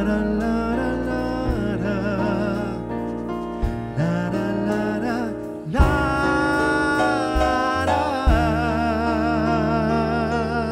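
Live band music: a male voice sings long held notes with vibrato, without clear words, over electric bass, drums and keyboard. A sharp band accent hits about six seconds in, and another about two seconds later.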